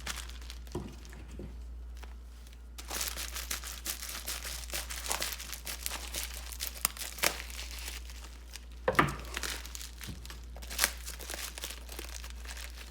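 A wrapped crystal package being unwrapped by hand: the wrapping crinkles and tears, starting about three seconds in, with scattered sharper crackles.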